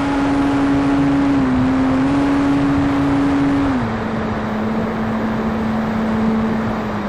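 Carbon Cub S2 RC plane's electric motor and propeller whining at a steady pitch over a dense rush of wind noise. The pitch dips briefly about a second and a half in, then steps down near four seconds in as the throttle is eased back.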